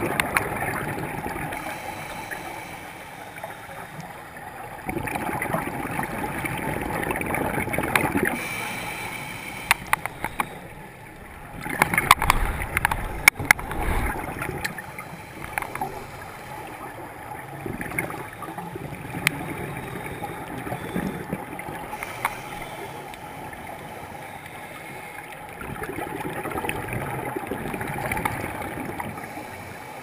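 Scuba regulator breathing heard underwater: bubbly gurgling surges of exhaled air every several seconds, with quieter stretches between and a cluster of sharp crackling clicks about halfway through.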